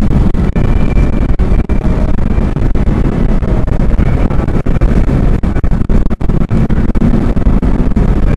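Loud, steady rumble of road and wind noise inside a car cruising at highway speed.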